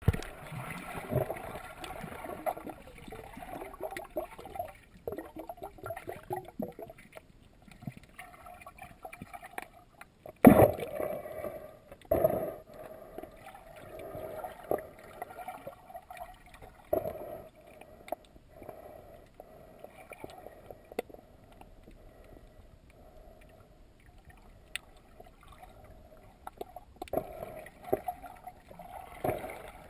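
Muffled underwater sound picked up by a submerged camera: water sloshing and gurgling around it, with irregular knocks and bumps, the loudest about ten and twelve seconds in.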